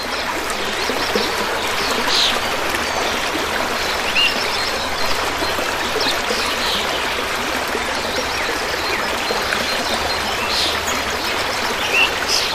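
Steady rush of a flowing river, with birds chirping now and then over the water.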